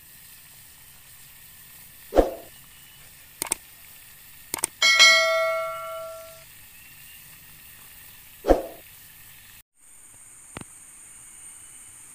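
Two dull thumps and a few sharp clicks over a steady hiss, with one struck metal object ringing about five seconds in and fading over a second and a half; near the end the background changes to a steady high-pitched drone.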